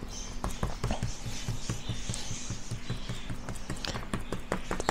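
A metal spoon patting and scraping a damp, crumbly fish-food mixture flat on a parchment-lined baking tray: many small irregular taps and scrapes.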